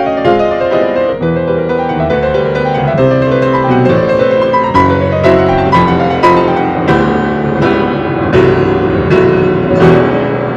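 Solo grand piano playing a tango: running notes at first, then from about five seconds in a series of accented struck chords, about two a second.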